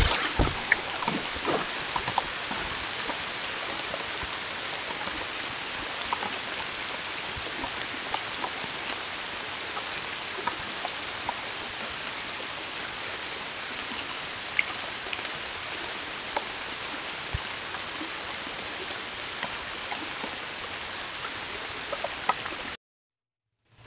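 Steady hiss of water with scattered small ticks, and a few louder knocks in the first two seconds.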